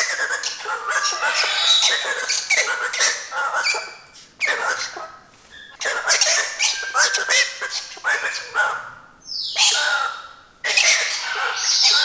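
Galah (rose-breasted cockatoo) screeching over and over in an agitated tantrum. The harsh screeches come in runs, broken by two short pauses, and one call near the three-quarter mark slides down in pitch.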